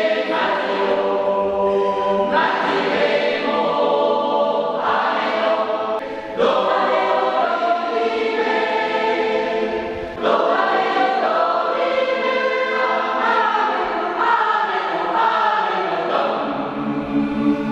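Amateur choir singing sustained chords, several voice parts together, the phrases breaking off briefly about every four seconds.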